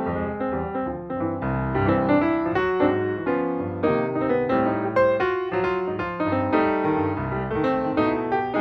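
Background piano music: many separate notes struck in quick succession over sustained low notes.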